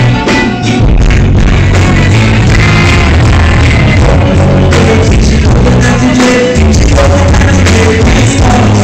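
Live reggae band playing loud, bass-heavy music with a voice singing over it, recorded on a phone at close to full level so the sound is overloaded and poor.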